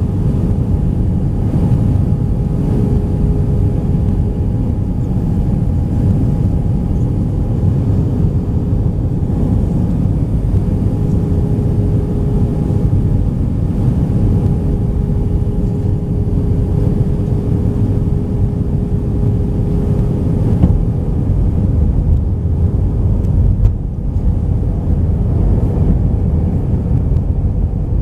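Airbus A319-131 airliner cabin noise in descent, heard from a window seat by the wing: a steady low rumble of airflow and its IAE V2500 turbofan engines, with a steady droning tone over it.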